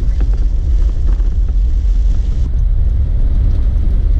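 Jeep Wrangler driving along a rough, wet dirt road, heard from inside the cab: a steady low rumble of engine and tyres, with a few light knocks from the bumpy road in the first second or so.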